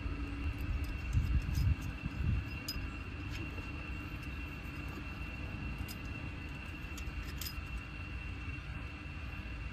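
Faint metallic clicks and clinks of brass pipe fittings, a ball valve and pressure gauge, being handled and fitted by hand, over a steady low rumble and a thin steady high-pitched tone.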